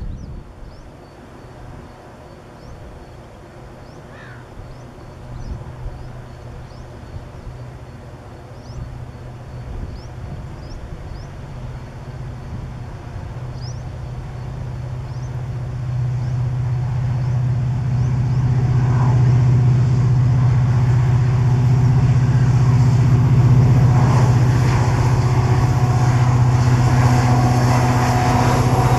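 A WDP-4 series diesel locomotive approaching, its engine hum growing steadily louder over the second half. Faint, short, high chirps repeat in the first half.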